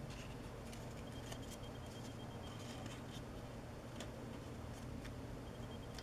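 Faint rustles and light clicks of hands handling a folded paper origami beetle and a thin plastic fridge magnet, pressing the magnet onto the back of the paper, over a steady low hum.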